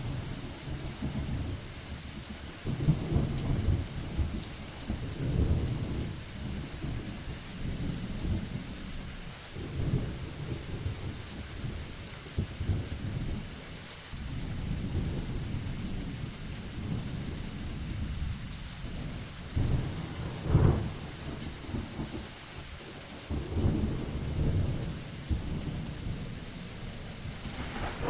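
Thunderstorm: steady rain hissing, with low rolls of thunder that swell and fade every few seconds and a sharper clap about twenty seconds in.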